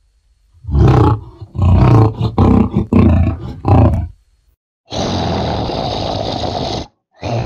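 Creature sound effects for a Tyrannosaurus rex-like monster: a run of about five short, loud roaring growls, then after a pause a steady, rasping breath of about two seconds, with another starting near the end.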